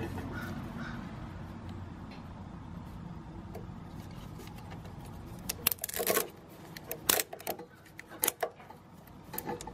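A red plastic reusable zip tie being handled and fitted around a lawnmower drive belt: a run of separate sharp plastic clicks and knocks in the second half.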